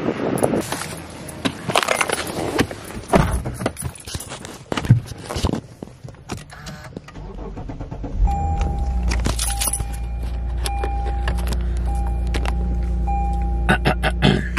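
Keys jangling with clattering handling noise, then a car engine starts about eight seconds in and idles with a steady low rumble. Over it a dashboard warning chime sounds in short repeated tones for several seconds.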